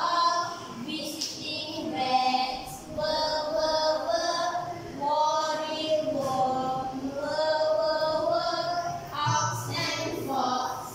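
A group of young children singing a phonics song together in unison, in held, stepped notes, with a woman's voice among them.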